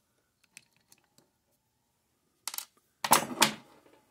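Small steel parts and pliers clinking on the metal X-Y table as the key is worked out of the screw shaft. A few faint clicks come first, then a sharp metallic clatter about two and a half seconds in and a louder one about three seconds in.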